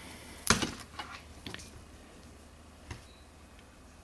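Handling noises as a plastic fashion doll is moved about: a sharp knock about half a second in, then a few smaller clicks and taps.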